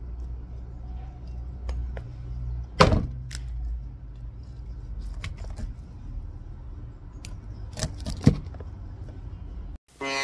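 Meat cleaver chopping raw duck pieces on a chopping board. There are a few sharp chops: the loudest about three seconds in, two more close together near eight seconds, and lighter taps between.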